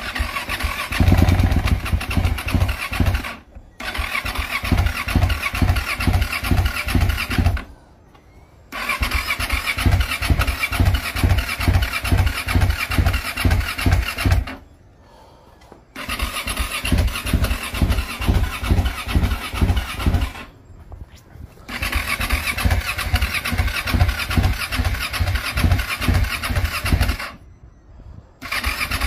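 KTM motorcycle engine being cranked over in repeated attempts, about six bursts of a few seconds each with short pauses between. It pulses evenly, struggles to turn over, and does not start.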